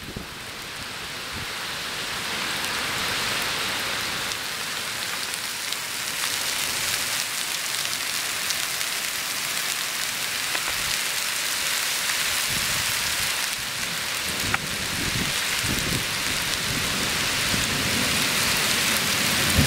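Heavy downpour hissing steadily on pavement and puddles, building up over the first few seconds. Low rumbles of thunder come in during the second half.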